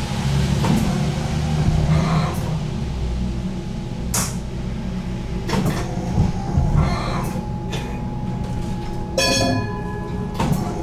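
Inside an HTM GTL8 tram standing at a stop: a low steady rumble from the tram's equipment, broken by several sharp clicks and knocks. About nine seconds in, a short buzzing signal tone sounds for about half a second.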